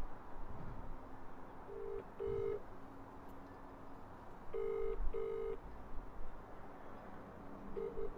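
British telephone ringing tone (ringback) heard through a mobile phone while an outgoing call rings unanswered. It comes as double rings, a pair of short buzzy tones about every three seconds, three times, the last near the end.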